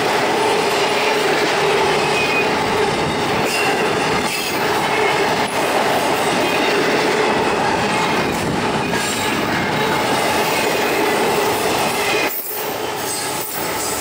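Double-stack intermodal container well cars rolling past at speed: a steady rumble of steel wheels on rail, with a steady wheel squeal running through it.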